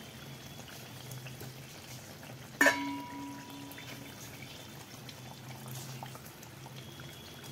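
Water poured from a steel cup into a pot of chicken korma gravy, trickling into the curry over a steady low hum. About two and a half seconds in, a single sharp metallic clink rings on briefly.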